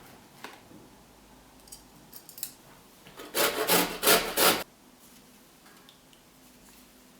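A rapid run of rough scraping or rubbing strokes, about a second long, a little past the middle, after a few light clicks.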